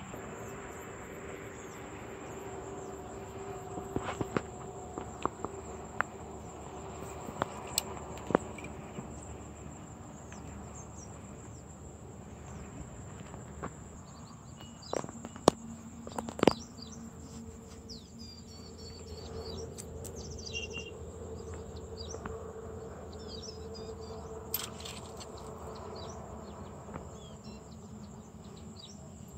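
Insects calling in a steady, high-pitched drone, with birds chirping now and then in the second half. Several sharp clicks stand out, the loudest a few together about halfway through.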